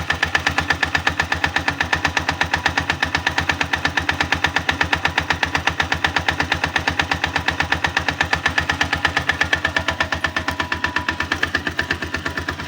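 162FMG single-cylinder four-stroke engine idling with a fast, even knock on every turn, a rattling knock whose source the owner cannot locate. The knock eases slightly near the end.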